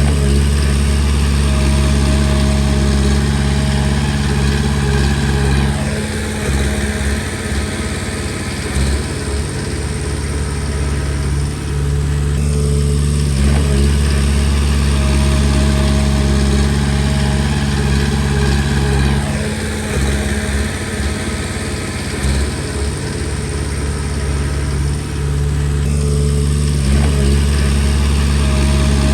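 Komatsu D20P bulldozer's diesel engine running steadily, its note changing about every six or seven seconds as the machine works through repeated push-and-reverse cycles.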